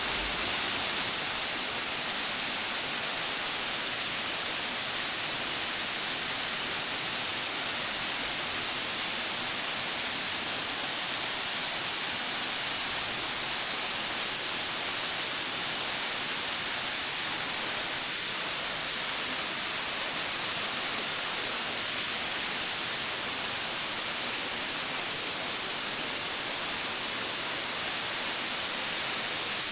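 Steady, unbroken rush of a stepped waterfall pouring over rock ledges.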